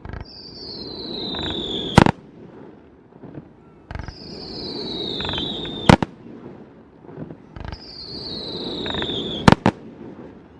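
Fireworks going off three times, about four seconds apart. Each one launches with a thump, whistles for about two seconds in a falling pitch, then ends in a sharp loud bang.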